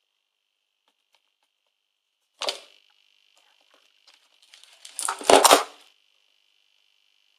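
Homemade high-voltage coil whining with a steady high tone, broken by a sharp crackle of sparks about two and a half seconds in and a louder run of crackling discharges about five seconds in.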